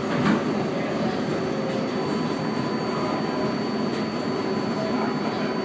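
Steady running noise of an R142A subway car in motion, heard from inside the car: an even rumble of wheels on the rails, with a faint steady high whine.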